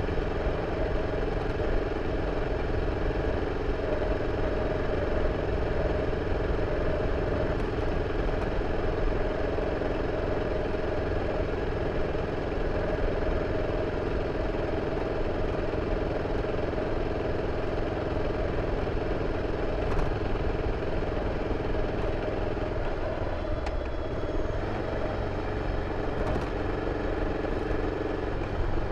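BMW F 650 CS Scarver's single-cylinder engine running steadily through its original exhaust, holding an even note with a brief dip near the end.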